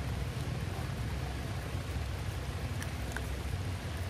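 Steady rain falling on wet ground, an even hiss over a low rumble, with a couple of faint drop ticks about three seconds in.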